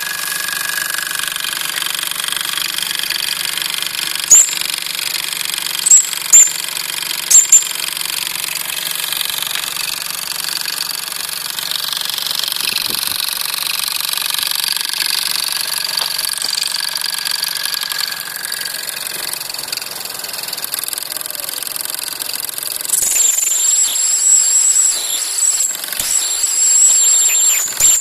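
Mamod TE1a model steam traction engine running in steam, its small oscillating cylinder chuffing steadily with a hiss of steam. A few short, loud, high squeaks come about four to seven seconds in, and a loud shrill whistling sounds for the last five seconds.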